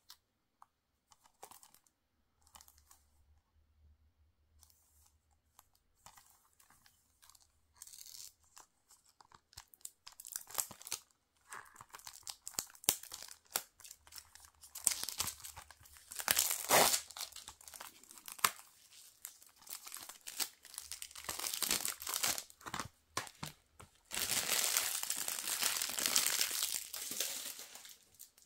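Plastic shrink-wrap being torn and peeled off a Blu-ray case: crinkling and crackling plastic, faint handling ticks at first, getting louder through the second half and loudest near the end.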